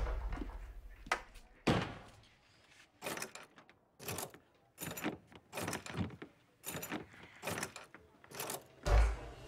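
A run of short, sharp clicks and knocks on hard surfaces in a toilet stall, roughly two a second, followed near the end by one heavier, deeper thud as a metal stall-door latch is worked.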